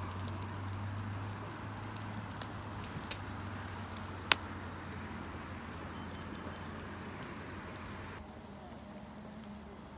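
Wood campfire burning, a steady soft hiss broken by a few sharp crackling pops, the loudest about four seconds in.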